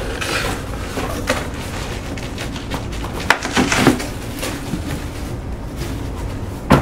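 Cardboard box being opened and handled: flaps scraping and rustling, with a few knocks as the box is set down on the wooden workbench, the loudest near the end, and plastic bubble wrap crinkling as it is pulled out.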